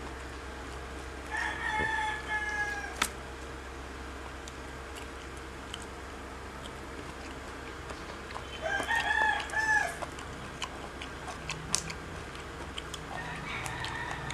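A rooster crowing twice, each crow about a second and a half long and roughly seven seconds apart, with a fainter crow beginning near the end. A few sharp clicks fall between the crows.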